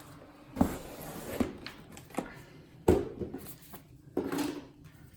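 Cardboard packaging being handled as an inner box is opened and its contents lifted out: a few sharp knocks and taps over rustling and scraping.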